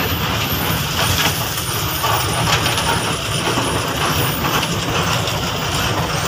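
KSRTC bus's diesel engine running steadily under way, with road noise and scattered short rattles.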